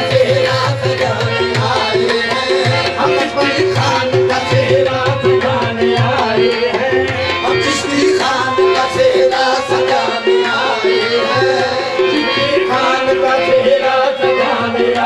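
Qawwali music with tabla playing a steady, driving beat under sustained melodic accompaniment.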